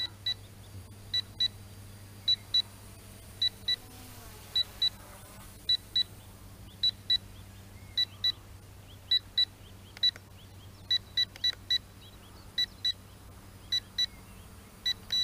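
Constant electronic beeping from the KS66 drone's controller: short high beeps, mostly in pairs, repeating about once a second over a faint steady low hum.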